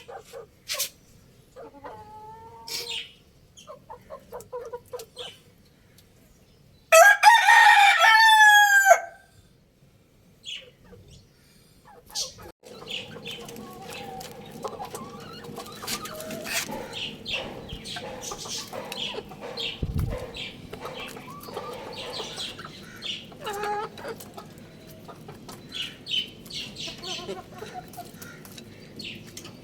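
A young rooster crowing once, a loud crow of about two seconds that falls in pitch at the end, about seven seconds in. Around it are short clucks and chirps of chickens; from about twelve seconds in, a busier background of many short bird calls.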